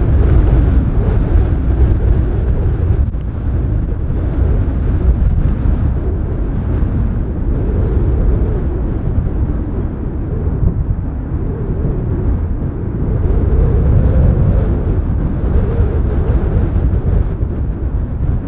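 Deep, steady rumble of a departing Boeing 747 freighter's four jet engines at takeoff power, swelling a little about a second in and again around the middle.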